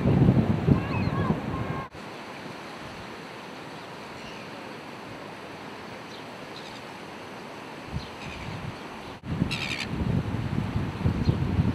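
Wind buffeting the microphone as a low rumble, with small birds chirping briefly over it. It breaks off suddenly about two seconds in. A steadier, quieter hiss of outdoor ambience follows, then the wind rumble and bird chirps return suddenly near the end.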